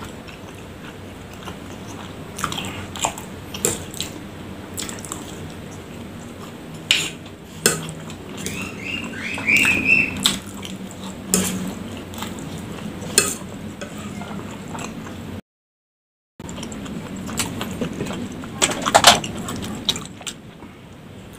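Close-up eating sounds of spicy fried instant noodles with macaroni: chewing, and a metal spoon and fork clicking against the bowl at irregular moments. The sound drops out completely for about a second two-thirds of the way through.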